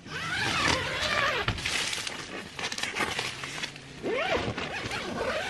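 Nylon tent door being unzipped in quick pulls, the zipper rising and falling in pitch with each stroke, in two bursts, near the start and again about four seconds in, with tent fabric rustling between them.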